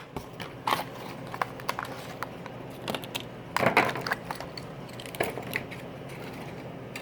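Toy car packaging being torn and pulled open by hand: cardboard and plastic crackling and clicking in short, irregular bursts, the loudest about three and a half seconds in.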